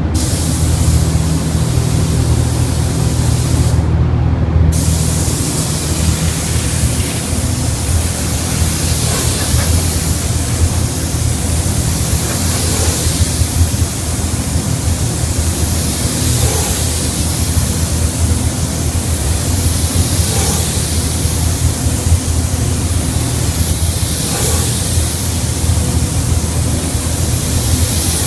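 Gravity-feed spray gun hissing as compressed air sprays paint onto a car body, the hiss swelling every four seconds or so with each pass and stopping briefly about four seconds in when the trigger is let go. A steady low hum runs underneath.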